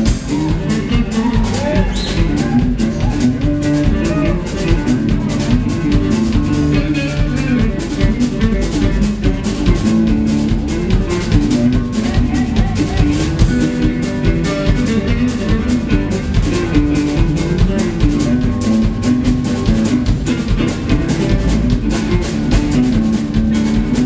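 A small live band playing an instrumental passage: drum kit keeping a steady beat under guitar, mandolin, saxophone, trumpet and upright bass.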